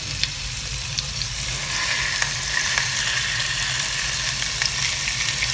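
Salmon fillets sizzling in hot oil in a frying pan, laid in skin side down: a steady hiss with small crackling pops, over a low steady hum.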